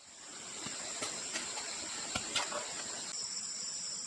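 Insects calling with a steady high-pitched buzz, a second, slightly lower insect joining in about three seconds in, with a few soft knocks around the middle.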